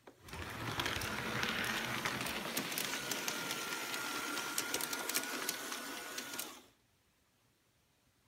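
LGB G-scale model electric locomotive running past close by: a whirring motor and gear drive with a rapid clicking of wheels over the rail joints and points, and a steady high whine joining in about halfway. The sound starts suddenly and cuts off suddenly after about six and a half seconds.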